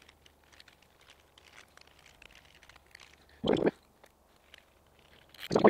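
Gloved hands handling electrical wire and splice-kit parts, making faint small clicks and rustles. There is a short louder crunch or scrape about three and a half seconds in, and more loud handling noises near the end.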